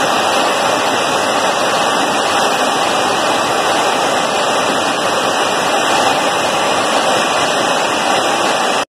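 Steady rushing noise of an aircraft in flight, heard from inside the filming aircraft. It cuts out for a moment near the end.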